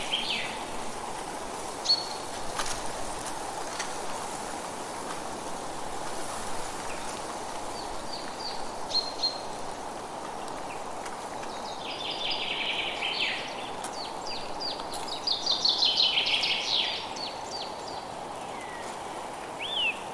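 Forest ambience: a steady background hiss with songbirds calling now and then. A few short chirps come early, then two livelier bursts of song in the second half.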